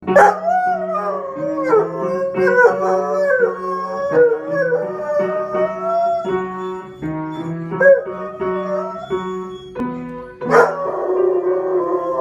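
A Dalmatian howling along to an upright piano being played, its long wavering howls gliding up and down over the steady piano notes. A fresh, loud howl starts right away and another about ten seconds in.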